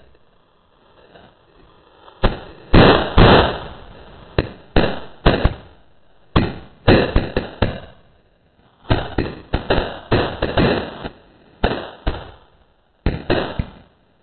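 A pack of firecrackers going off: dozens of sharp bangs in irregular clusters, starting about two seconds in and dying away near the end, with short pauses between the bursts.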